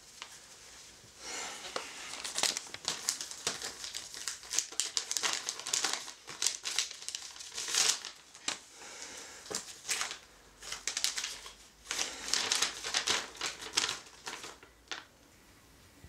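Paper letters rustling and crinkling as they are handled, unfolded and leafed through, in irregular bursts of crackle that die away near the end.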